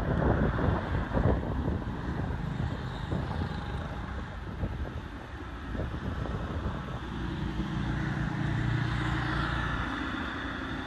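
Wind buffeting the microphone, then a low steady engine hum from a motor vehicle that swells about seven seconds in and eases off near the end.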